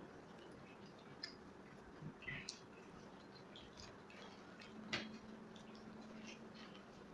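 Faint eating sounds: soft chewing with scattered small mouth and hand clicks as bajra roti and sev sabji are eaten, with one sharper click about five seconds in.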